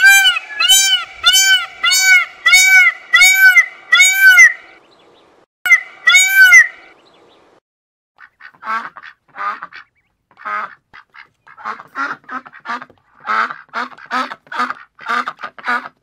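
An Indian peafowl (peacock) calling: a rapid run of about eight loud, arched, ringing calls, about two a second, then a short pause and two more. From about eight seconds in, ducks quack in quick rasping runs.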